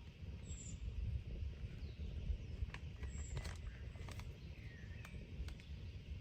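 Forest ambience: a steady low rumble with a few faint, short bird chirps falling in pitch, and several light clicks or taps near the middle.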